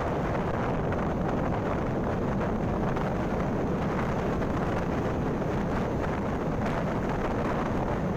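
Steady wind rushing over the microphone of a moving motorbike, blended with engine and road noise from the ride.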